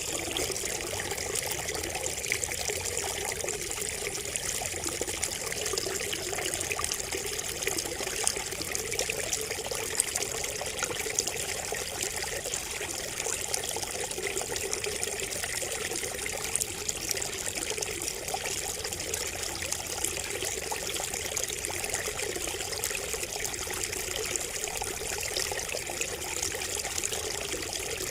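Water trickling and splashing steadily from a bamboo spout, an unbroken stream of fine splashes.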